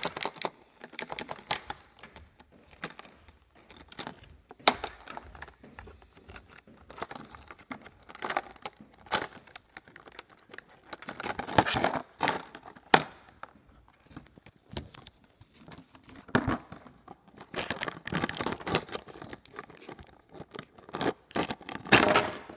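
Small hard-plastic animal figurines being worked out of their clear plastic tube: irregular sharp clicks, knocks and rustling of plastic against plastic, loudest twice, about 5 and 13 seconds in.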